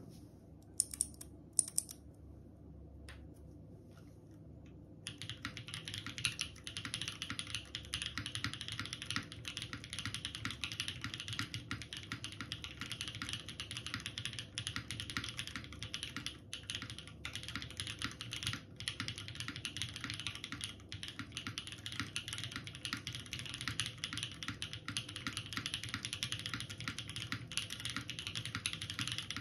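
Typing on a TGR Jane v2 ME custom mechanical keyboard with lubed JWK Tungsten linear switches on a top-mounted carbon-fibre plate under GMK keycaps. There are a few separate clicks in the first two seconds. About five seconds in, steady fast typing starts and carries on as a continuous clatter of keystrokes.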